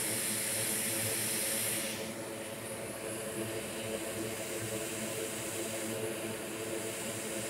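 Hot air rework station blowing with a steady hiss over a low fan hum while a replacement resistor is reflowed onto a MacBook logic board. A strong high hiss drops away about two seconds in, and a softer hiss and the hum carry on.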